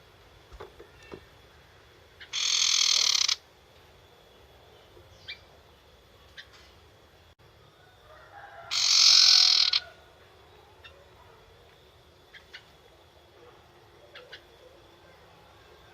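Young wild sirtu bird giving its harsh rattling 'nyetater' call twice, each rattle about a second long and several seconds apart, with faint short chips in between.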